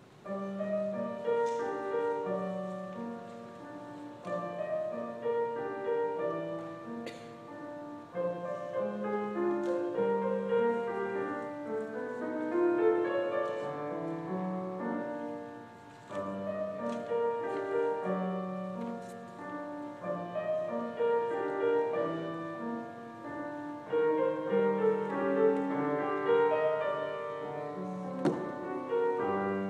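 Solo grand piano playing a piece, starting right at the beginning, with a brief drop in level about halfway through before the playing goes on.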